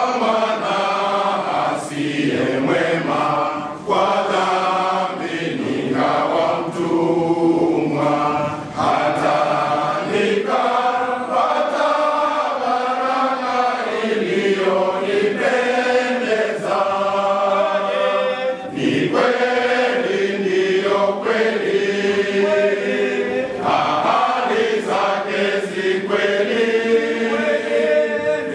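Men's choir singing a Swahili hymn, many voices together, continuing without pause.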